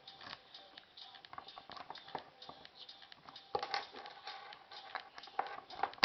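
Small irregular clicks and scratches of a lock pick working the pins of a five-pin cable lock, mixed with handling of the lock body and cable; the clicks bunch up about three and a half seconds in and again just before the end.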